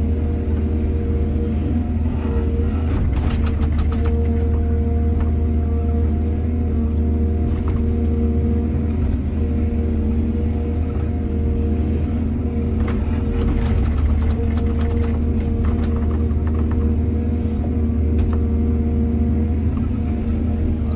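Heavy diesel excavator engine running steadily at working speed, a constant low drone. Bursts of clanking and rattling come about three to four seconds in and again from about thirteen to sixteen seconds in.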